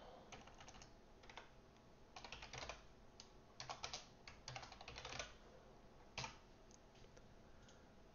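Faint computer keyboard typing in short bursts of keystrokes, with one sharper click a little after six seconds.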